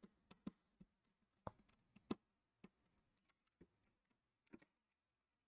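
Faint, irregular clicks and taps of a small screwdriver and a wire at a screw terminal block on a 3D printer control board, as a power wire is seated and tightened. About a dozen sharp ticks over four seconds, then quiet.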